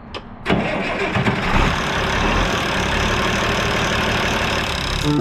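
International Harvester 1086 tractor's diesel engine starting: a click, then about half a second in the engine catches and runs steadily.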